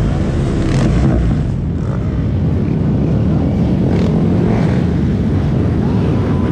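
Several small-displacement motorcycles riding together at low speed, their engines running continuously with the pitch rising and falling as the riders work the throttle.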